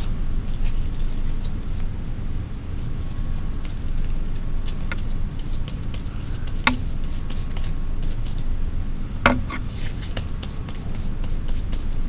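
A steady low background rumble, with a few light ticks and taps from the glue brush and tissue paper on the paper, the clearest three spread over the middle of the stretch.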